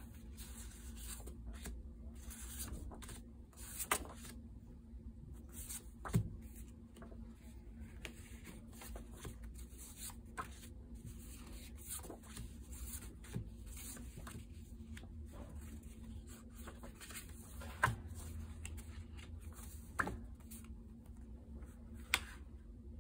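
Loose paper notecards handled by hand: soft rustling and sliding of card stock as they are leafed through and spread out, with a handful of sharper ticks as cards are set down.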